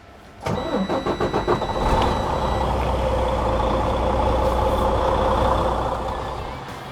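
Detroit Diesel DD15 engine in a semi truck cranking for about a second and catching promptly, then running steadily, with a steady high warning tone sounding during the start. A quick start like this shows the fuel-system overhaul has cured the truck's slow crank.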